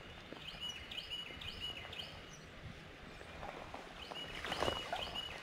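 A small bird calling over steady outdoor background noise: a short, high, repeated note about twice a second, in one run in the first two seconds and another near the end, with a few brief rustles or splashes just before the second run.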